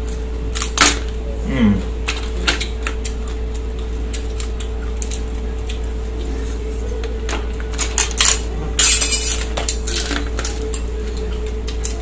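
Irregular clicks and clinks of dishes, utensils and crab shells being handled during a meal of steamed crab, with a longer rough crunching burst about nine seconds in, over a steady hum.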